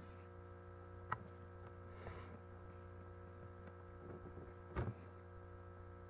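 Faint steady electrical mains hum, with a sharp click about a second in and a brief soft noise near the end.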